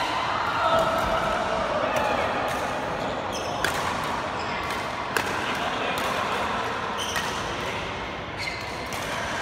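Badminton rackets striking a shuttlecock during a rally: sharp cracks roughly every one and a half to two seconds, over a steady background of voices in a large sports hall.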